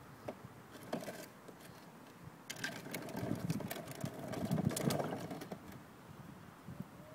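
Hard plastic wheels of a ride-on toy quad rattling and rumbling as it is pushed across wet tarmac and through a shallow puddle, from about two and a half seconds in until about five and a half. A few sharp clicks before that.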